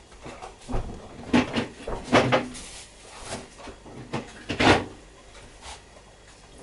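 Household knocking and clatter from someone moving about in a kitchen: about eight separate knocks and bangs spread irregularly, the loudest about two seconds in and again shortly before five seconds.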